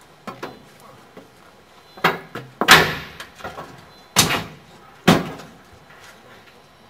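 Four loud bangs and knocks over about three seconds, the loudest a little under three seconds in: wood and metal striking in the cab of FS Gruppo 880 steam tank locomotive 880 157 while its firebox is lit with pallet wood.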